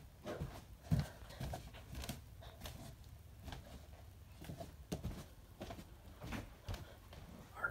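Soft, uneven footsteps of a person walking, about two a second, with light knocks and rustles in between.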